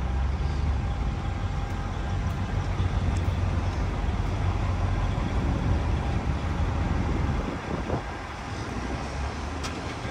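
Low, steady rumble of vehicle engines in a ferry holding lot, easing off about seven and a half seconds in.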